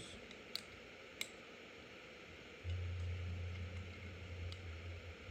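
Faint clicks of small steel pistol parts being handled during reassembly, two of them about half a second and a second in. From about halfway a steady low hum comes in and carries on.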